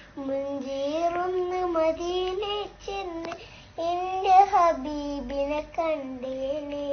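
A little girl singing to a baby, a melody of long held notes that glide up and down, with a short pause for breath about three seconds in before she sings on.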